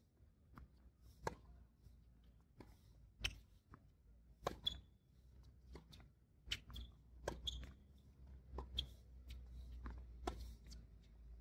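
Tennis rally on a hard court: sharp pops of racket strikes and ball bounces every second or two, with a few short high squeaks, likely from court shoes.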